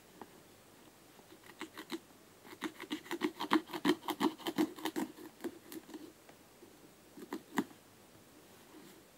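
Scissors cutting into a football boot: a quick run of sharp snips, about three a second, that thins out and stops, then two more snips near the end.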